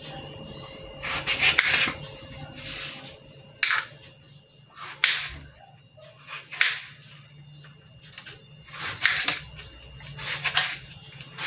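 Kitchen knife slicing through ripe tomatoes and tapping the plastic cutting board, about seven cuts at irregular intervals, over a faint steady hum.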